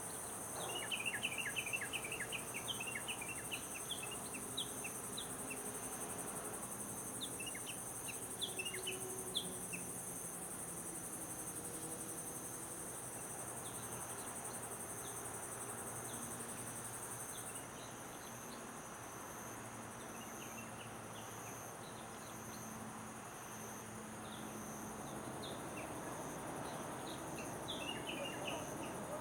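Crickets and other insects trilling steadily, a high continuous drone with an evenly pulsing chirp beneath it; the highest drone drops out a little past halfway. Small birds chirp in quick bursts near the start and again near the end.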